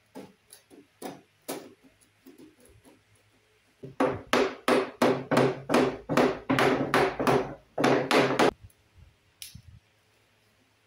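Small hammer striking the wooden frame of a cabinet's slatted panel: after some light knocks and clicks as the panel is handled, a rapid run of loud blows, about four a second, lasting some four and a half seconds, then stops.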